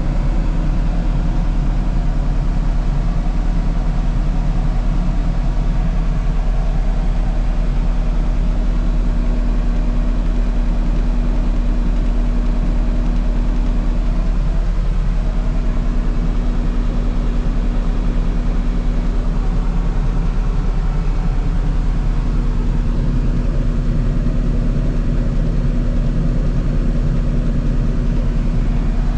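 Case SV185 skid steer's diesel engine running steadily at a constant speed, a steady low hum with no change.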